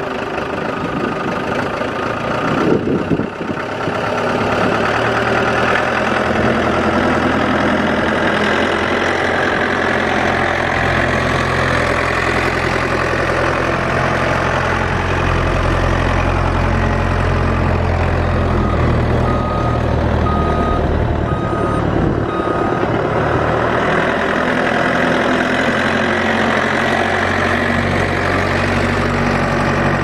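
Ford 555D backhoe's four-cylinder diesel engine running steadily, louder from about four seconds in. About two-thirds of the way through, the backup alarm beeps four times.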